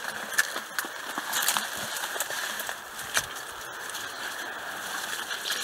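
Dry twigs and scrub rustling and crackling as someone pushes through dense undergrowth, with irregular sharp snaps.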